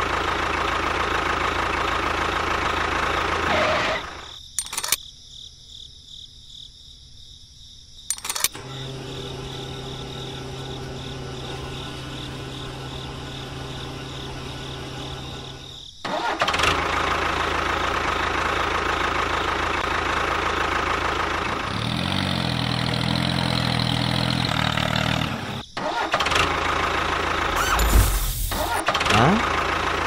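Motor and engine sounds of the miniature tractor and bulldozer running, changing abruptly every few seconds: a steady noisy run, a quieter stretch with a low steady hum, then a louder run with an engine-like rattle. Sharp clicks and knocks come near the end.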